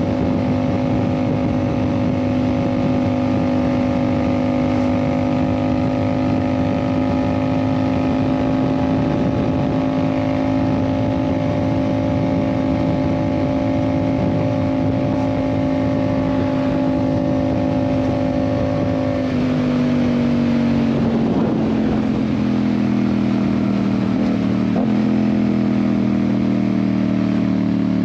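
Yamaha MT-07's 689 cc parallel-twin engine running under way through an aftermarket Ixil exhaust, holding a steady note at first. About two-thirds of the way in the engine note drops and then keeps falling slowly as the bike loses speed.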